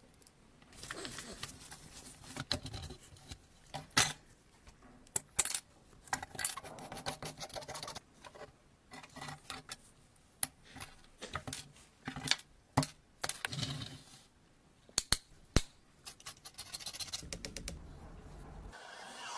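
A flat metal blade scraping and prying at a rusted metal car body, with many sharp clicks and taps of metal on metal and a scratchy grating between them. Near the end a steady hiss sets in.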